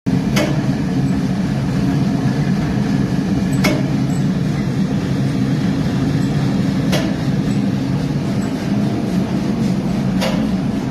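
Lavash bread production machine running with a steady, loud mechanical drone, and a sharp click about every three seconds.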